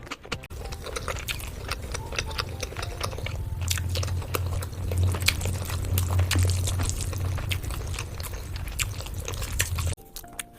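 Close-miked eating: a dense run of sharp crunching bites and chewing clicks over a low steady hum, cutting off suddenly near the end.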